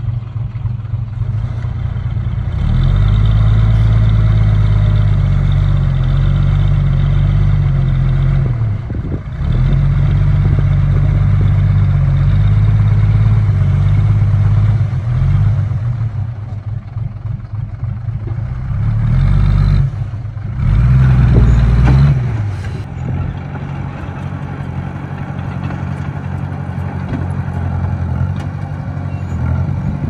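Diesel engine of a small Komatsu crawler bulldozer working, revving up and dropping back several times as the load comes on and off.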